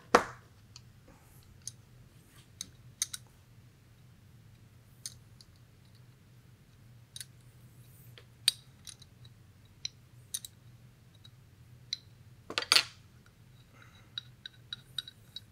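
Scattered sharp metallic clicks of an open-end wrench being set on and turned against the valve retainer nut of an FX Wildcat MKIII air rifle's action, with a louder cluster of clicks late on and a run of small quick ticks near the end.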